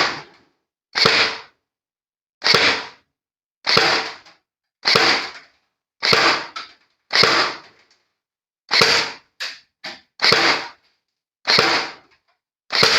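Classic Army Nemesis double-barrel M4 airsoft rifle fired on single shot from its right barrel: about ten sharp shots, one every second or so. Two fainter clicks come near the middle.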